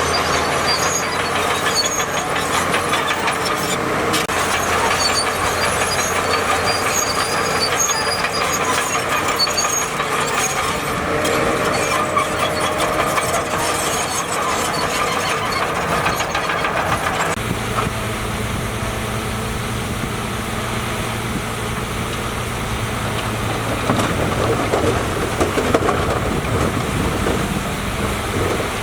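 Heavy earthmoving machinery working: diesel engines running under a steady rattle and scrape. About two-thirds of the way in, a steadier, lower engine hum takes over.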